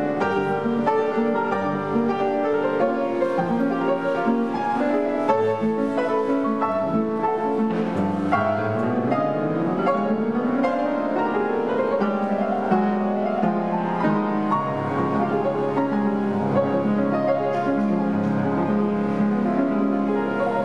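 Background instrumental music led by piano, with a rising run of notes about eight seconds in.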